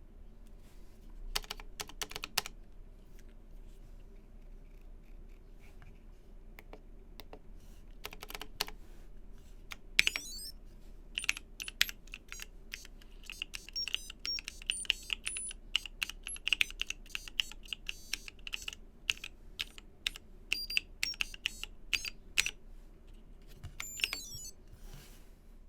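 Typing on a Waka60 mechanical keyboard with TKC Kiwi 67g tactile switches, lubed with 205g0 and filmed, under DSA-profile keycaps. A few scattered keystrokes come first, then steady fast typing from about ten seconds in until near the end.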